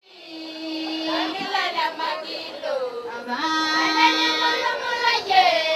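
A group of women and girls singing a song together, several voices bending through the melody over a held lower note. It fades in over the first second.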